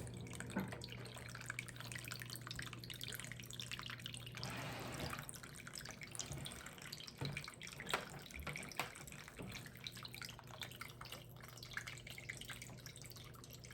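Small plug-in decorative water fountain running: water trickling and dripping, with the faint steady hum of its electric pump underneath.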